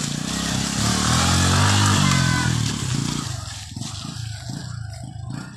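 Small motorcycle engine running loudly as it passes close by, its pitch rising and then falling, then fading away after about three seconds as it rides off.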